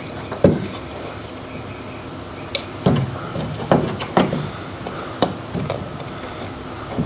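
A series of irregular knocks and clunks, about half a dozen spread over several seconds, as of objects being handled and set down.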